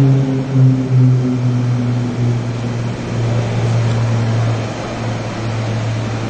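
A steady low mechanical drone with a few overtones, sinking slightly in pitch over the first two or three seconds, over a background hiss.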